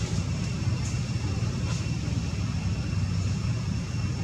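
Steady low rumble of distant motor traffic, with a faint constant high-pitched whine over it.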